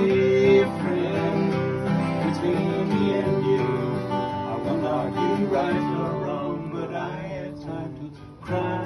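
Two acoustic guitars strummed together with men singing along. The playing dips briefly near the end and picks up again.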